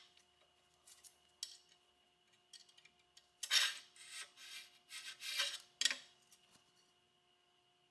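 Scratchy metal-on-metal scraping of a surface gauge's scriber against an aluminium tube and of the gauge's steel base on the steel table, in two stretches of about a second each a few seconds in, with a few light clicks.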